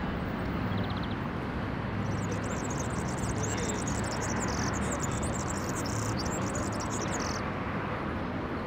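Steady low background rumble, with a run of rapid, high-pitched chirping from about two seconds in until past seven seconds.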